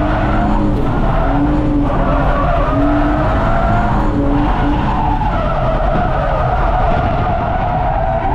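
Drift car engine at high revs, its pitch rising and falling again and again, with the tyres skidding through a drift.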